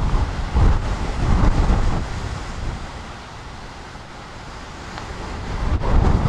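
Gale-force storm wind of about 120 km/h gusting through trees, with a heavy low rumble. A strong gust in the first two seconds eases to a lull, then the wind builds again near the end.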